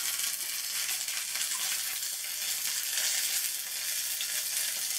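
Curry leaves and asafoetida sizzling steadily in hot ghee in a small frying pan: a tadka (spice tempering) being fried.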